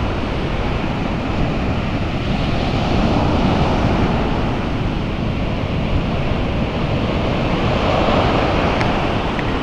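Ocean surf breaking on a sand beach, a steady rushing that swells a little a few seconds in and again near the end, with wind buffeting the microphone.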